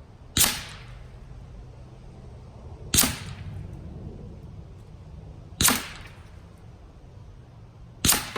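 AEA Terminator .357 PCP air rifle firing four shots, each a sharp crack, about two and a half seconds apart.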